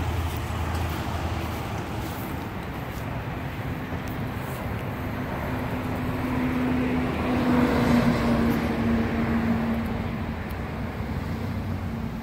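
Road traffic passing. One vehicle grows louder with a steady engine hum and peaks about eight seconds in, then fades.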